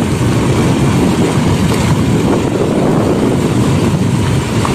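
Steady, loud wind buffeting on the microphone from moving along at speed, with vehicle rumble underneath.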